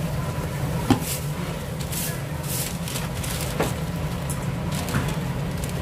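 Noise of a street-food grill stall at work: a steady low hum, a few sharp clacks of utensils about a second in, then twice more later, and short bursts of hissing.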